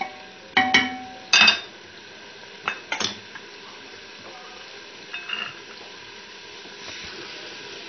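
A spatula knocking and scraping against the rim of an aluminium pressure-cooker pot while onions and minced meat are stirred: five or six clanks in the first three seconds, the loudest about a second and a half in. After that, the soft steady sizzle of the mince and onions frying in oil.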